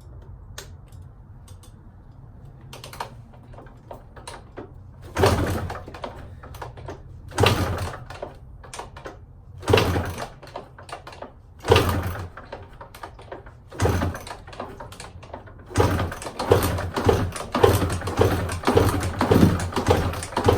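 2005 Kawasaki KDX 200 two-stroke being kick-started with the choke on: five separate kicks about two seconds apart, then a quicker string of strokes over the last few seconds. The engine does not catch and run.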